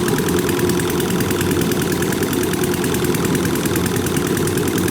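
Kubota combine harvester's diesel engine running steadily as the machine works through a flooded rice paddy, with an even rapid beat throughout.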